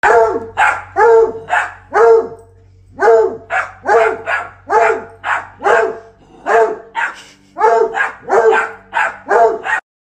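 A dog barking over and over, about two barks a second, with a brief pause about two seconds in.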